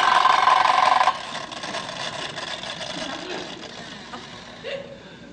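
Toy space blaster firing a loud, steady electronic buzz that cuts off suddenly about a second in, followed by studio-audience laughter that slowly fades.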